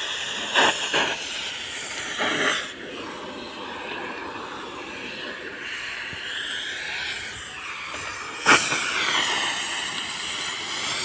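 Oxy-LPG gas cutting torch hissing steadily while it burns through a steel rail, with three brief louder bursts.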